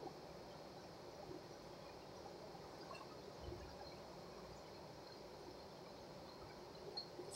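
Near silence: faint kitchen room tone with a few soft ticks, and one dull low thump about three and a half seconds in as a person gets up from the table.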